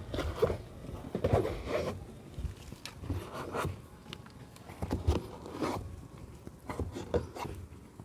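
A cloth rubbing and scraping over a car's plastic inner door panel in short, irregular wiping strokes.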